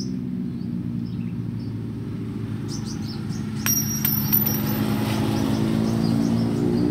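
Suzuki L2 Super motorcycle engine running steadily, growing gradually louder toward the end as it starts to rev up. A few brief clicks come about four seconds in.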